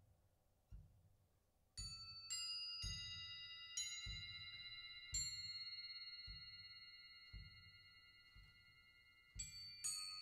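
Solo contemporary percussion music: a soft, low drum beat about once a second, over which tuned metal percussion is struck in single high, bell-like notes that ring on and slowly fade. Five strikes fall between about two and five seconds in, then two more near the end.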